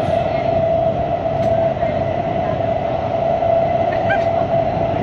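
Singapore train carriage in motion: a steady rumble and rush of running noise with a constant mid-pitched hum throughout.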